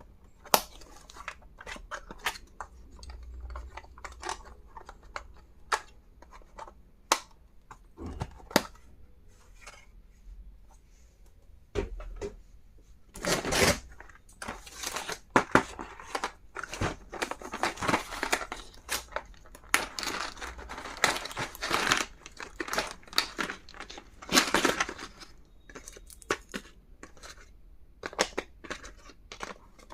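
Packaging being unwrapped by hand: wrapping crinkling and tearing, with many sharp clicks and taps. The rustling is busiest in the middle and later part.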